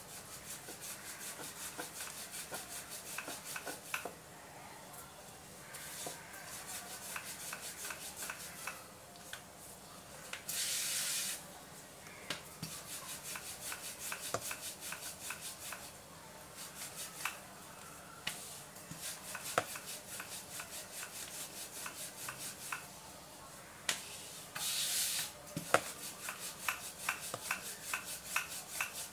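Wooden rolling pin rolling and rubbing back and forth over a round wooden board as a thin dough wrapper is rolled out, in quick repeated strokes with light clicks of wood on wood. Twice, about ten and twenty-five seconds in, a louder rush of noise lasting about a second.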